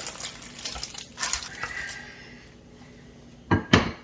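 Wax paper rustling and crinkling as hands press raw ground beef flat through it, with two loud sudden pats close together near the end.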